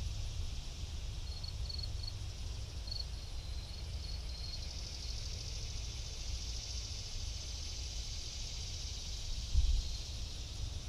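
Wind buffeting the camera microphone in a low, steady rumble, with a stronger gust near the end. Underneath runs a steady high hiss, and a few short high chirps come in the first few seconds.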